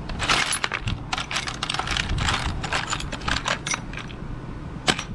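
Loose steel and brass bushings, spacers and washers clinking and rattling against each other and the metal tray as a hand rummages through them. The clinking is busy for the first three and a half seconds, then there is one sharp clink near the end.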